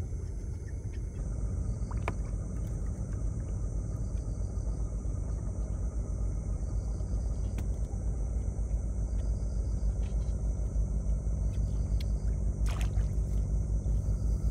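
A small boat's engine running steadily with a low, fast-pulsing drone that grows gradually louder.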